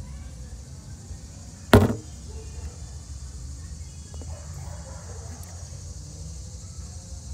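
A single sharp knock about two seconds in, the loudest sound here, over a steady low rumble of handling noise from a hand-held phone.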